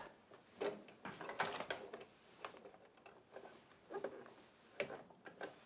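Faint, scattered clicks and rustles of pinned cotton fabric being handled and set under a sewing machine's needle, with small mechanical clicks from the machine before it starts stitching.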